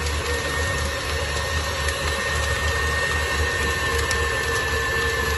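KitchenAid tilt-head stand mixer running steadily, its motor humming with a constant high whine as the flat beater paddle works a sticky dough.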